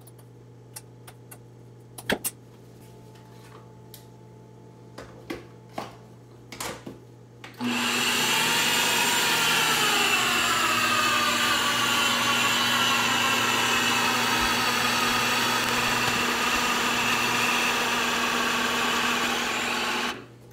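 Countertop blender running for about twelve seconds, mixing a thick pizza dough of flour and water. Its motor pitch sinks a little in the first few seconds as it takes the load, then holds steady and cuts off. Before it starts, a few light taps and clicks of a spoon and lid against the blender jar.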